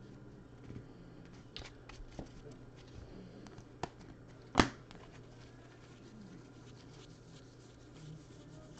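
Baseball trading cards being flipped through and handled: soft rustling and sliding of card stock with small ticks, and one sharp click about halfway through. A faint steady hum sits underneath.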